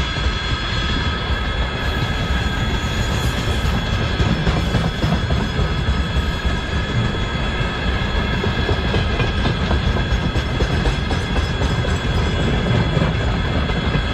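Freight train of railway tank cars rolling past: a continuous rumble of wheels on rails, with a few thin, steady high ringing tones running through it.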